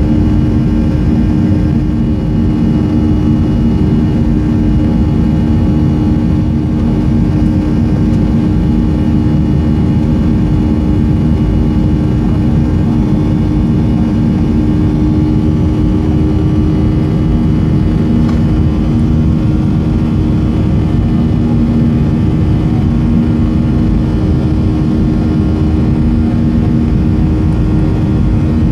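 Cabin noise of a Boeing 737-300 climbing out after takeoff: the jet engines' steady drone heard from inside, with a constant low hum.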